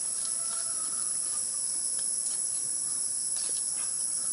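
Steady, high-pitched chorus of insects, with a few faint ticks.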